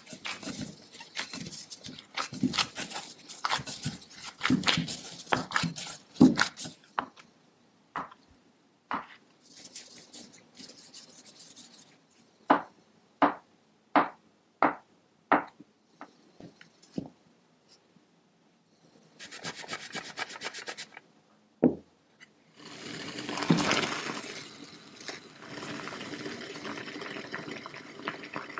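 Gloved hands kneading crumbly taro-ball dough in a glass bowl, an irregular rubbing and squishing. Then a kitchen knife chops through rolls of dough on a wooden cutting board: about five sharp chops, roughly two every second and a half, with a few lighter cuts after. Near the end, water is boiling steadily in a glass pot with the taro balls in it.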